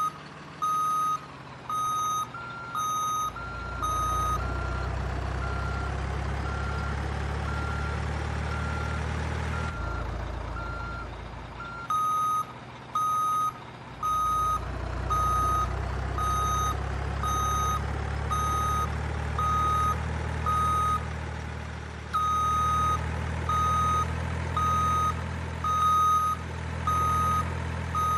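Remote-control truck's sound unit playing a reversing alarm that beeps about once a second over a low diesel-truck engine rumble. The rumble drops out for a few seconds about ten seconds in, then returns.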